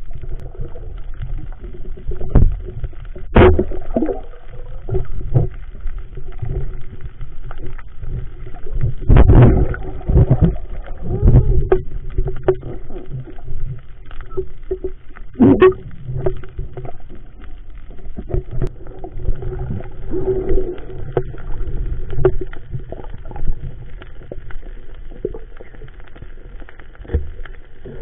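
Muffled underwater noise picked up by a submerged camera: a low rumble of water moving as the spearfisher swims, with irregular knocks and thuds and a few louder surges.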